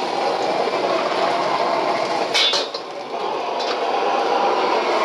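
Commercial gas wok burner running with a steady roar while a bamboo wok brush scrubs water around the hot wok. Two sharp knocks come about two and a half seconds in.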